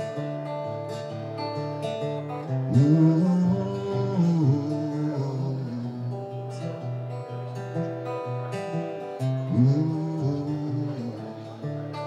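Taylor acoustic guitar playing an instrumental passage of picked notes. A man's wordless voice slides up and down over it twice, about three seconds in and again near ten seconds.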